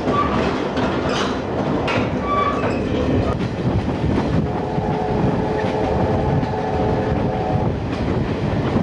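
Passenger car of a steam excursion train rolling over jointed track, with the clickety-clack of its wheels heard through an open window. A steady chord of several tones comes in about halfway through and stops shortly before the end.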